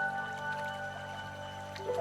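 Calm background music: held, ringing notes over a low steady drone, with a new set of notes coming in near the end.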